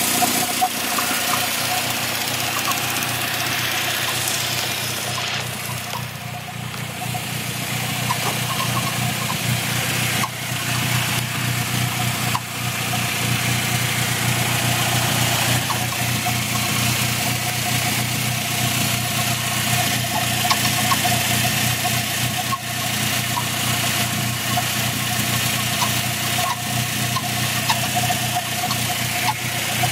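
Car engine idling with a repeated high chirping noise over its steady hum. The owner first suspected the clutch throwout bearing, since the chirp went away with the clutch pressed, but the chirp is now constant and shows up only after the car has been driven for ten minutes or more.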